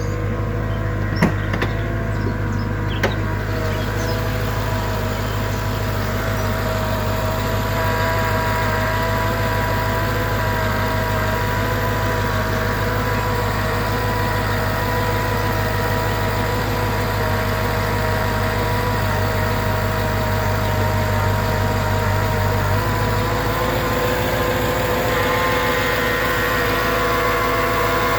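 Mercedes-Benz E55 AMG V8 running on a cold start with a steady whirring whine over the engine note. The whir shows up on cold starts and quietens after about a minute of running, and its cause is unknown to the owner, who has found the pulleys good. Two light clicks come in the first few seconds, and the tone of the whine shifts about 24 seconds in.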